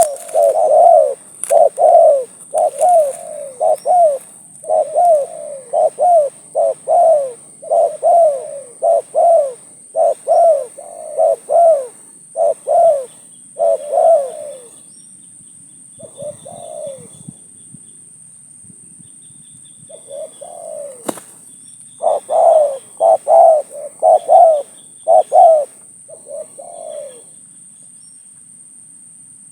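Spotted dove cooing: a long run of short coos, each falling in pitch, that breaks off about halfway through, resumes for several seconds, then stops.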